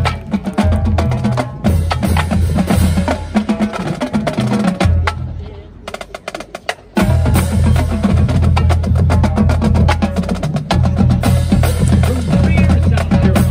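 Marching-band drumline (snare drums, tenor drums, pitched bass drums and cymbals) playing a street cadence. It drops to quieter playing about five seconds in, then comes back in full about two seconds later.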